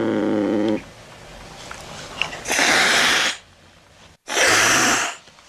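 A domestic cat's drawn-out meow ends about a second in, followed by two hisses, each lasting under a second.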